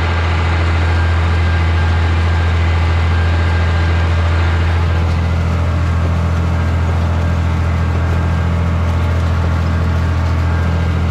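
Tractor engine running at a steady speed while pulling a planter through a field, heard from the open operator's seat as a constant low hum.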